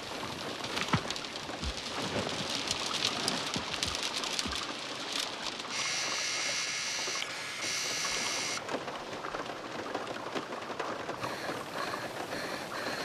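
Heavy rain drumming on a car's roof and windows. In the middle, a high electronic whine of night-vision goggles runs for about three seconds, with one short break.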